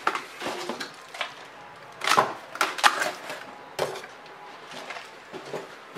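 Cardboard box and packaging being handled: scraping and rustling with a few sharp knocks and snaps as the box's contents are pulled about.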